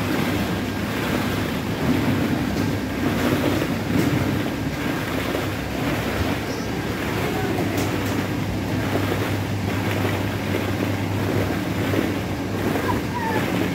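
Plastic ball-pit balls shifting and rustling in a steady wash as a child wades through the pit, over a constant low hum of the indoor play area.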